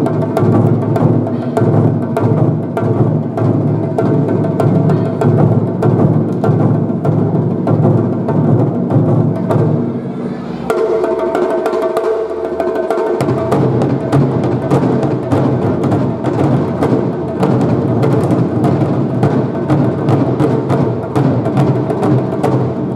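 Shachi-daiko performance: a row of taiko drums beaten together in a fast, steady rhythm. About ten seconds in, the deep drum tone drops away for a couple of seconds, then comes back.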